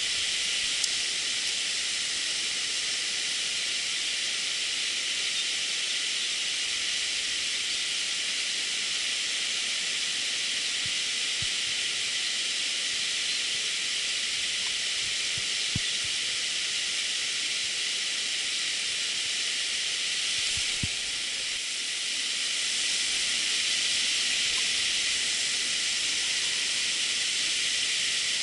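River water rushing over a small weir: a steady hiss, with a few faint clicks.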